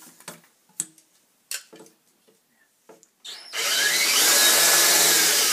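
A few light clicks and knocks, then about three seconds in a cordless drill starts up and runs steadily at full speed. Its bit is boring into a wooden beam to cut out a recess.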